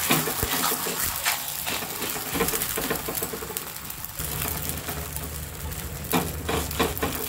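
Oil sizzling on a hot tava under a thin stuffed uppittu flatbread. A few clicks and scrapes of a steel spatula come near the end.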